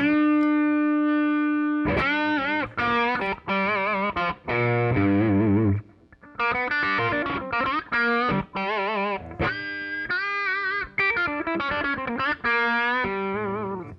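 RJ Bluesbreaker Deluxe semi-hollow electric guitar with two humbuckers playing a single-note lead: one long sustained note, then phrases with wide vibrato and string bends, breaking off briefly about six seconds in before more phrases and a final held note.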